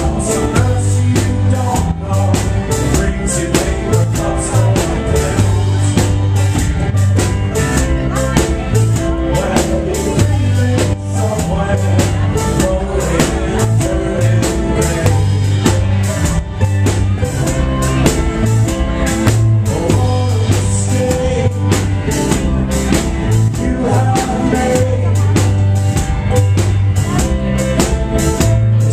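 A rock band playing live and loud: electric guitars, a heavy bass line and a drum kit, with the drums striking in a fast, steady rhythm.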